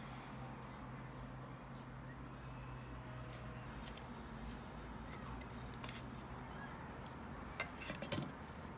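Scattered small clicks and taps of plastic laptop parts and small tools being handled during disassembly, most of them close together near the end, over a steady low hum.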